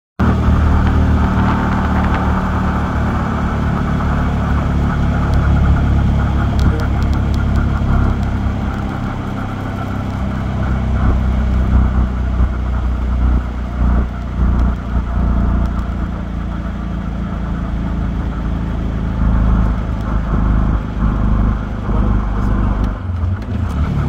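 A moving vehicle's engine and tyre noise heard from inside the cabin: a steady low rumble that holds at an even level.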